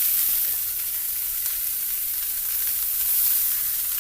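Leftover rice frying in hot oil with a mustard-seed and chilli tempering, a steady sizzle.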